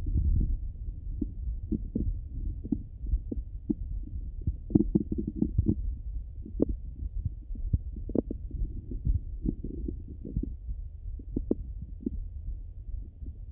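Bowel sounds of a hungry, empty stomach heard through a Littmann stethoscope. Irregular gurgles, clicks and pops sit over a muffled low rumble, and they come thicker and louder from about five to nine seconds in.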